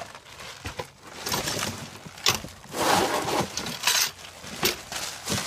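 Cardboard box being handled and its bubble-wrap packing pulled out: irregular crinkling, rustling and scraping, with a few sharper crackles.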